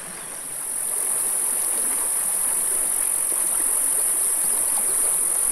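Steady, high-pitched shrill of insects over the rushing of a shallow, rocky mountain creek; both grow louder about a second in.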